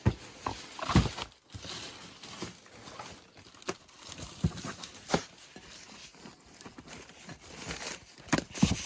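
Paper rustling and crinkling while things are handled and unpacked from a storage bin, with several light knocks and clicks of objects being set down.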